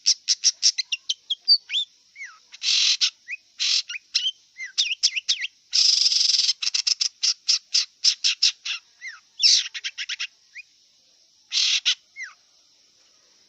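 Long-tailed shrike singing: rapid runs of short chattering notes broken by several harsh rasping bursts.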